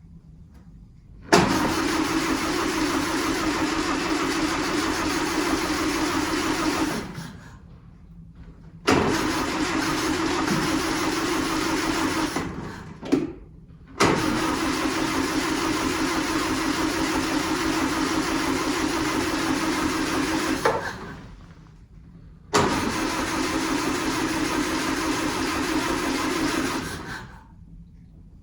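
1939 Austin 12's starter motor cranking the four-cylinder engine in four long bursts of about four to six seconds each, with a brief blip between the second and third. The engine turns over but does not start.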